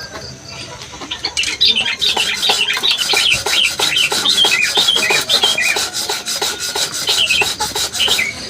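Lorikeet chattering in a fast, unbroken run of short high notes, starting about a second in and stopping just before the end.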